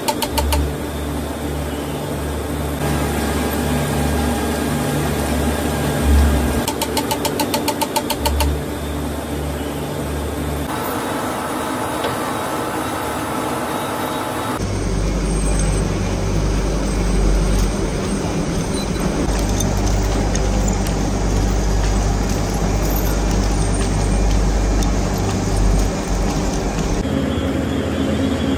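Battery-factory machinery running with a steady low hum, joined in stretches by a fast regular clicking; the sound changes abruptly several times.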